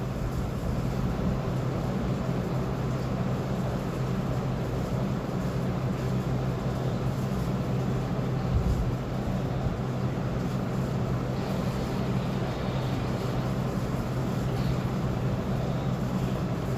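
Hot-air heat gun running steadily, its fan giving a low hum with a rush of air, as it heats a replacement chip onto a circuit board. A brief dull thump about halfway through.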